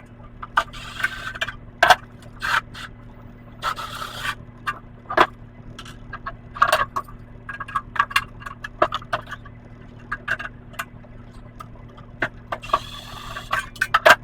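Irregular metallic clicks, knocks and scrapes of hand tools and metal parts being handled while a light fixture is taken apart, with two longer scraping or rummaging stretches, one about a second in and one near the end. A steady low hum runs underneath.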